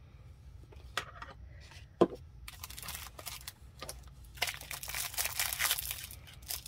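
Clear plastic wrapping crinkling and rustling as a wax-melting spoon wrapped in it is handled and drawn out of a burlap drawstring bag. The crinkling starts about two and a half seconds in and is busiest near the end. Two sharp knocks come before it, the louder about two seconds in.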